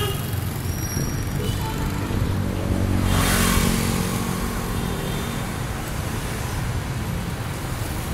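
Street traffic heard from a moving pedal cyclo: motorbike engines running past over a steady low rumble, with one pass swelling loudest about three seconds in.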